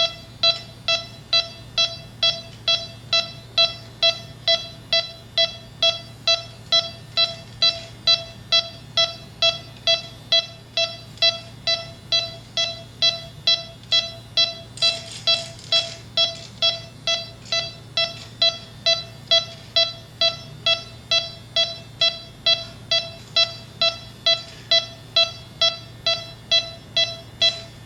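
Yellow Jacket electronic refrigerant leak detector beeping steadily at about two beeps a second, the rate never quickening as its probe is run over the coil: it is not picking up R-410A at 5 psi. A brief hiss about halfway.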